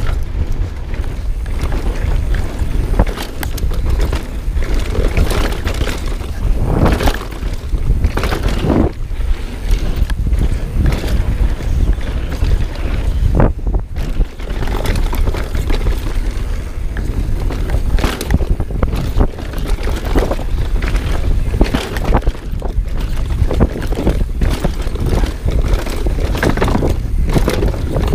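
Wind buffeting a GoPro action camera's microphone during a fast mountain-bike descent on a dirt trail, a steady low rumble. Over it, the Knolly Delirium full-suspension bike's tyres crunch and skid on dirt and its chain and frame clatter over bumps in frequent sharp knocks.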